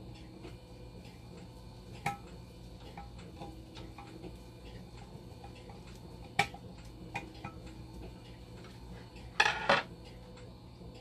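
Steel screwdriver clicking and ticking against the screws and metal frame of a dialysis machine's blood pump module as its DC motor is screwed in, with a few sharper clicks. Near the end comes a louder double clatter as the screwdriver is set down on the desk.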